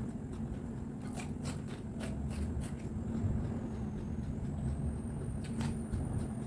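Crisp crunching of someone chewing raw bitter gourd (ampalaya), a run of sharp crunches about a second in and more near the end, over a steady low rumble.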